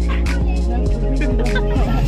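Background music with heavy held bass notes and a steady beat.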